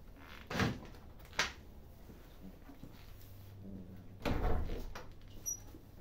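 Food dishes knocking and scraping on a concrete floor as cats eat: two short knocks early on, then a longer scrape a little after four seconds and a small click.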